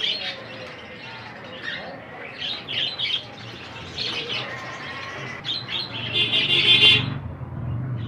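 A flock of caged white Java finches (Java sparrows) chirping, short high calls overlapping throughout, loudest and densest about six to seven seconds in.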